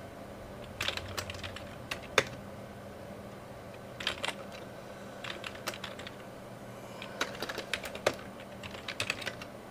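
Typing on a computer keyboard: keys clicking in several short bursts, with pauses between them.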